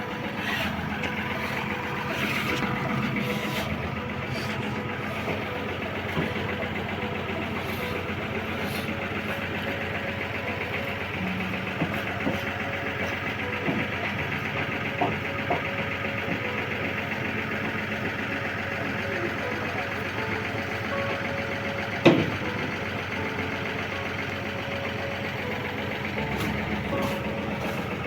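Heavy vehicle engine, likely the tipper truck's diesel, running steadily at idle. A single sharp knock sounds about two-thirds of the way through, with a few lighter clicks scattered around it.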